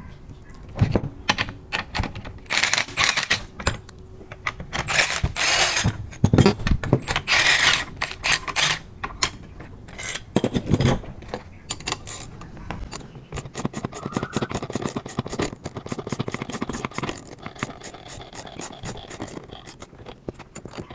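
Steel coil spring compressors being taken off a car's shock absorber strut: several short bursts of a cordless impact wrench running the compressors' threaded rods out, clanks as the compressors are lifted off and set down on the bench, then a long run of rapid clicking as a hand wrench works the strut's top nut.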